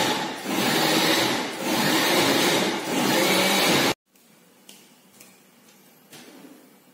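Electric blender running as it grinds fried chillies, its sound dipping about once a second, then stopping abruptly about four seconds in.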